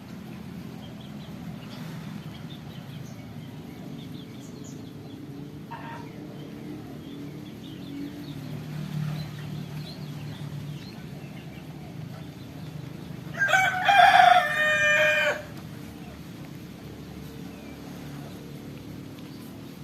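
A rooster crows once, a single call of about two seconds, over a steady low background hum.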